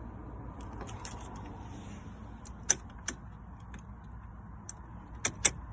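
Car keys jangling and clicking at the ignition lock: a few sharp clicks, two a little under three seconds in and two in quick succession near the end, over a steady low hum.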